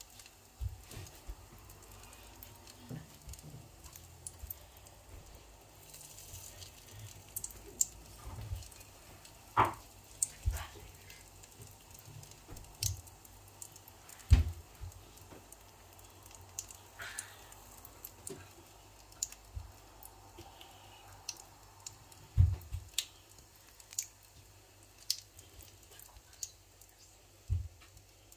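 Puff puff dough balls deep-frying in hot oil: scattered sharp pops and crackles at irregular intervals, with a few dull knocks now and then.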